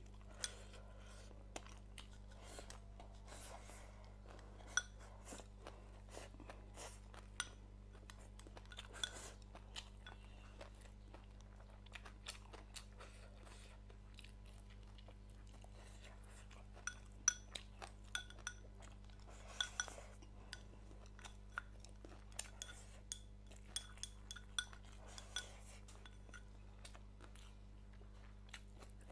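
Close-up eating sounds: crunchy chewing and biting, with sharp little clicks of chopsticks against a bowl or dish scattered through, most frequent in the second half. A steady low hum runs underneath.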